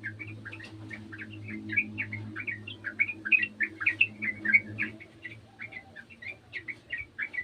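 Yellow-vented bulbul (trucukan) singing a fast, unbroken run of short chirping notes, over a low steady hum that stops about five seconds in.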